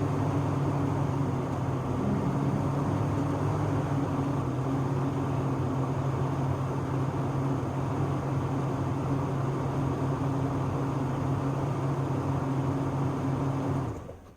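2001 Chevy 1500's 4.8-litre V8 idling steadily, then switched off near the end, cutting to near silence.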